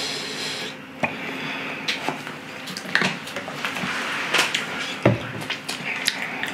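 Plastic squeeze bottle of sauce hissing and sputtering as it is squeezed over a fried pork cutlet for about the first second. Then a run of clicks and knocks from the bottle and tableware, with a heavier thump about five seconds in.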